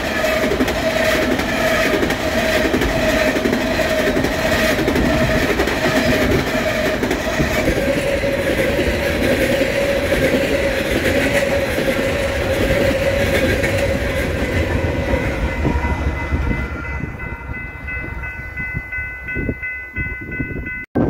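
Coal hopper cars rolling past at speed: a steady rumble and rail clatter with a ringing hum from the wheels, fading over the last few seconds as the train draws away. From about 17 seconds in, a distant locomotive horn holds a steady multi-note chord.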